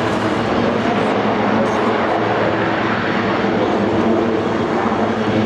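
A pair of Westland Lynx helicopters flying in formation, their rotors and turbine engines making a steady, even sound.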